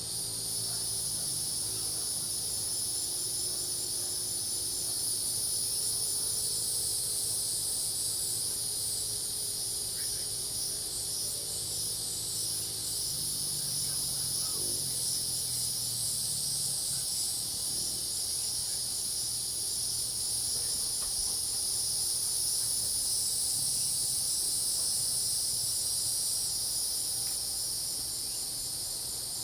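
Steady chorus of crickets and other insects, a dense high-pitched trill with a fast pulse in it, with lower frog calls beneath it that fade out about halfway through.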